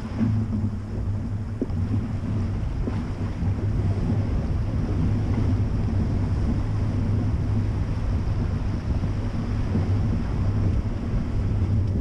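Nissan X-Trail's engine running steadily under load as the car fords a shallow glacial river, with water washing and splashing against the car and wind noise on the microphone.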